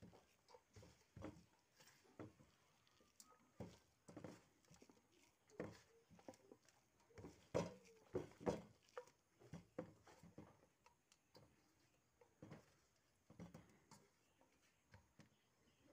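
Faint, irregular rustling and soft knocks of a bare hand mixing and squeezing chopped fern shoots with onion in a stainless steel bowl, a few strokes louder near the middle.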